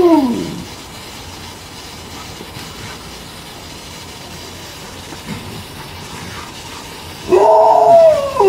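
Alaskan malamute vocalising with a wavering, howl-like "woo" that fades out about half a second in, then a steady hiss of water spraying from a DIY bottle sprinkler on a garden hose. A second loud malamute woo starts near the end.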